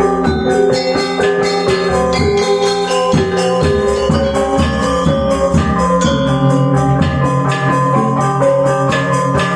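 Balinese gamelan gong ensemble playing a tabuh: bronze metallophones and gongs sounding a dense run of struck, ringing notes, with a low held tone coming in about six seconds in.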